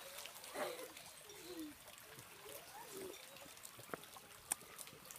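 Faint trickle of water in a shallow stream running over rock, with a few soft clicks.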